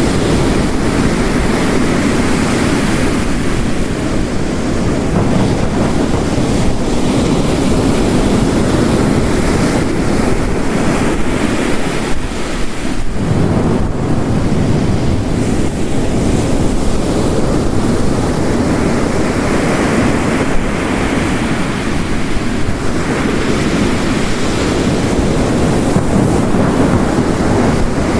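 Ocean waves crashing and heavy rain falling together: a continuous loud rush that swells and eases slowly, with a brief lull about halfway through.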